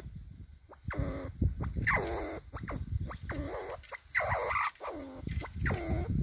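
Eurasian red squirrels squealing: a series of short, falling, whiny calls about once a second, given in a dominance standoff between two squirrels, with faint scrabbling of claws on wood beneath.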